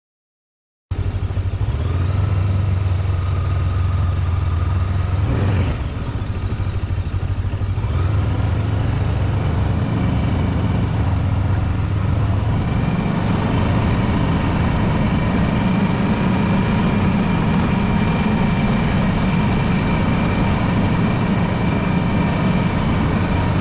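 Macbor XR5 motorcycle under way: steady engine running under a heavy rush of wind noise. The sound cuts in about a second in.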